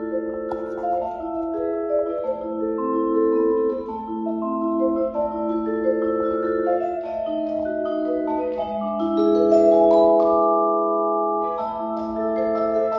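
Yamaha vibraphone played solo with mallets: ringing chords and single notes that sustain and overlap one another, building to its loudest about ten seconds in.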